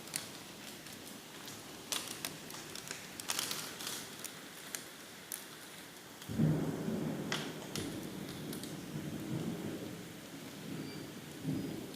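Hailstones striking hard surfaces in scattered sharp clicks and taps over the hiss of heavy rain. About halfway through, a low rumble sets in and swells.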